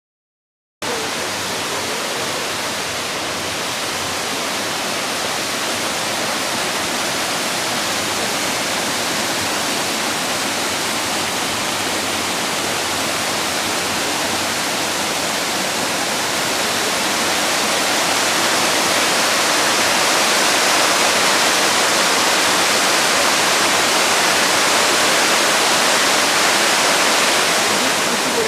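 Waterfall rushing: a dense, steady wash of falling and foaming water that cuts in abruptly about a second in and grows slightly louder past the middle.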